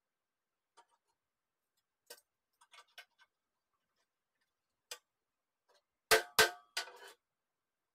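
Metal clicks and light taps from work on a steel tractor bucket, then two sharp, loud knocks in quick succession about six seconds in, followed by a brief clatter.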